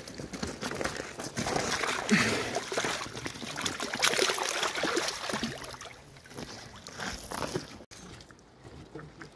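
Large fish splashing and thrashing as a landing net full of them is dipped and tipped into a pond, with water sloshing and dripping off the net. The splashing is loudest in the middle and stops abruptly near the end.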